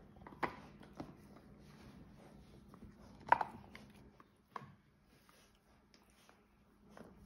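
Rottweiler puppies mouthing and gnawing a shared chew bone: scattered sharp clicks and knocks of teeth on the bone, the loudest about three seconds in, with soft rubbing between.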